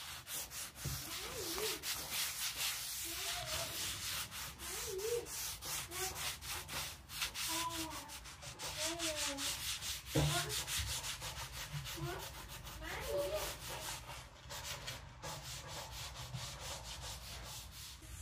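A damp cloth rubbed back and forth over a raw timber slab in quick, repeated strokes, wetting the wood. A single knock sounds about halfway through.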